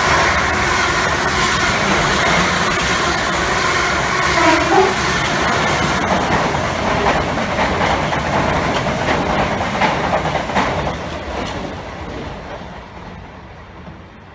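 Passenger trains running past at speed, a loud rush of wheel and rail noise with repeated clicks as the wheels cross the rail joints, and a brief whine about four to five seconds in. The noise fades away over the last few seconds as the trains move off.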